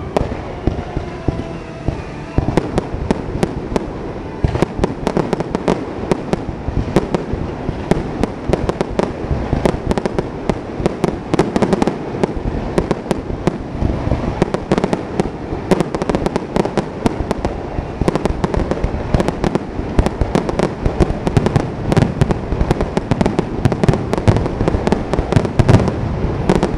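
Fireworks finale: aerial shells launching and bursting in quick, overlapping succession, a dense run of bangs several a second with no pause.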